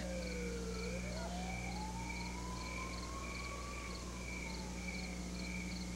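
A siren wailing slowly and faintly: its pitch sinks about a second in, climbs over the next three seconds, then starts to fall again. Crickets chirp steadily underneath.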